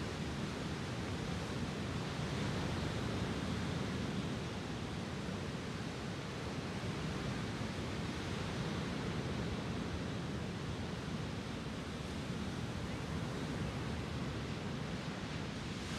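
Lake Superior waves breaking and washing up on a sandy beach: a steady rush of surf that swells slightly a few seconds in.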